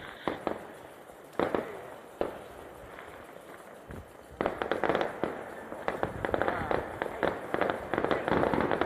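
Fireworks going off: a few separate bangs, then from about halfway a dense, continuous volley of crackling pops that grows louder.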